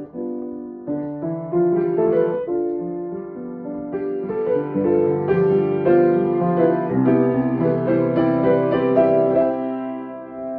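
Grand piano played by hand: a slow melody over sustained chords, getting louder from about a second in.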